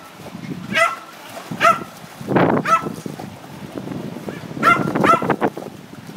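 A small dog barking in short, high yaps, roughly once a second, with a break in the middle. Water splashes as a Jack Russell terrier paws and wades in a plastic paddling pool.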